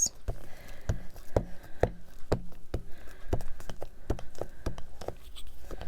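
Light taps and knocks of small craft items being picked up and set down on a desk, about two a second and unevenly spaced.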